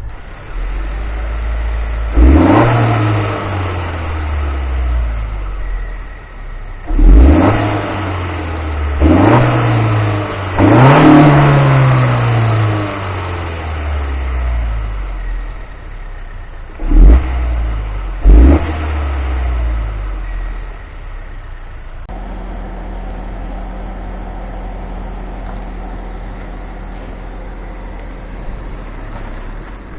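2017 Honda Civic's 1.5-litre turbo four-cylinder (L15B7) revved in neutral: six quick throttle blips that climb sharply and fall back, the last two short. It then settles to a steady idle about 22 seconds in.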